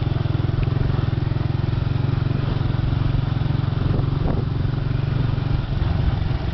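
Small motorbike engine running steadily at low road speed, a low, even hum with a fast regular beat.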